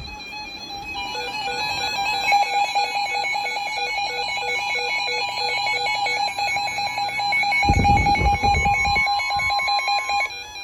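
Weather radio alert: a rapid, even beeping alarm over a steady warning tone, sounding for a severe thunderstorm warning. The beeping stops suddenly about ten seconds in. A brief low rumble comes about eight seconds in.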